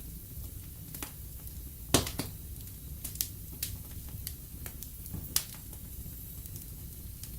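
Wood fire in a fireplace crackling: a steady low rumble of the flames with scattered sharp pops, the loudest about two seconds in and another just past five seconds.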